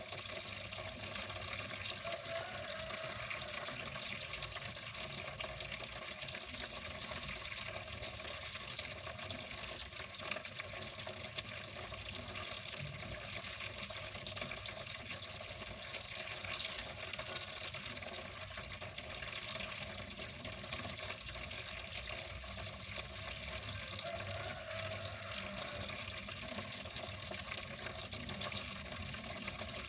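Water flowing steadily, an even, unbroken rush with no pauses or changes.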